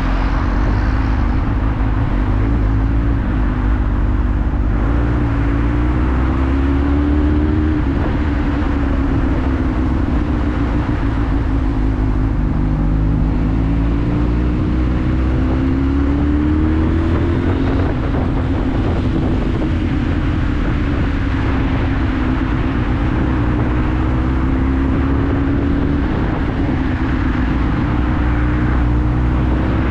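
Motorcycle engine running at low road speed, its pitch climbing and falling again several times as the throttle is opened and closed, over a steady rush of wind and road noise.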